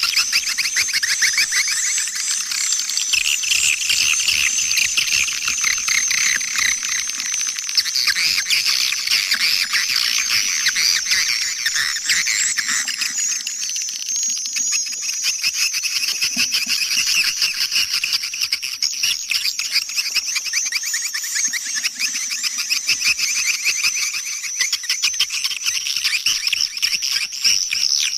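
Swiftlet call-sound recording used in swiftlet farming to lure the birds: a dense, unbroken chorus of high-pitched swiftlet twittering packed with rapid clicks and chirps.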